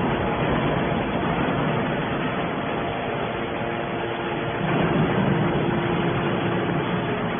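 Mobile scrap metal baler's engine and hydraulics running steadily, with a heavier surge of noise about two-thirds of the way through.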